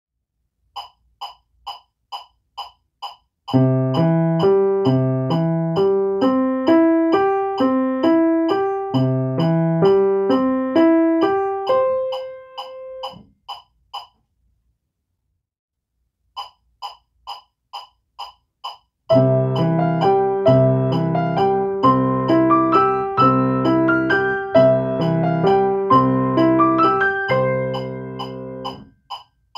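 Grand piano playing two short chord studies. Each is led in by a metronome count-in of even ticks, about two and a half a second, and the ticks carry on under the playing. A short pause falls between the two pieces.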